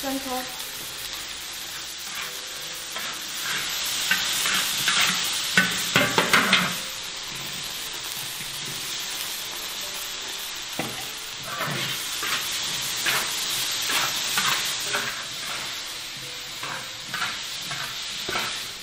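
Dried turnip and pork stir-frying in a large wok: a steady sizzle with repeated scrapes of the stirring utensil against the wok, loudest about six seconds in.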